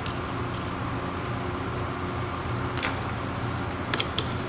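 Steady background hum with a few light clicks of small metal tools and parts being handled against a polymer gun frame: one near the middle and two close together near the end.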